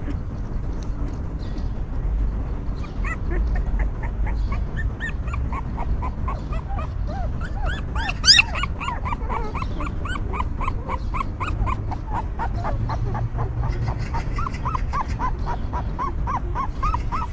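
Young puppies whimpering and yelping, rapid short squeaky cries several a second, with one louder, higher squeal about halfway through, over a low background rumble.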